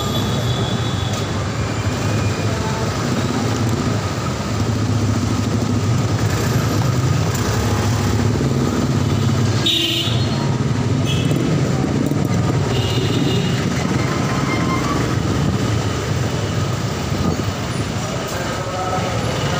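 Dense street-traffic noise heard from a motorcycle creeping through jammed traffic: a steady mix of idling and low-revving engines from the motorcycle and the jeepneys alongside. A few brief high-pitched notes come about halfway through and again near the end.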